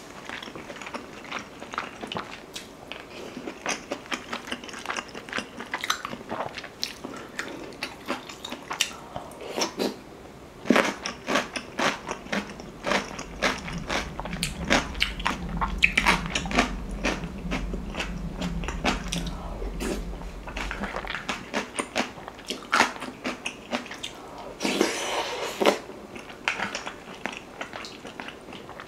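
Close-miked chewing of mouthfuls of rice and beef-rib soup, a steady run of small sharp, wet mouth clicks and smacks.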